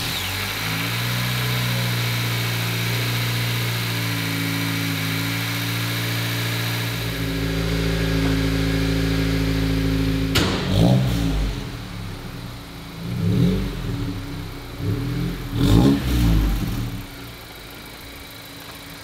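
2022 Honda Civic Si's turbocharged 1.5-litre four-cylinder, just fitted with a new downpipe, running on its first start: a steady raised idle for about ten seconds. Then the throttle is blipped several times, the engine revving up and dropping back, before it settles to a quieter idle near the end.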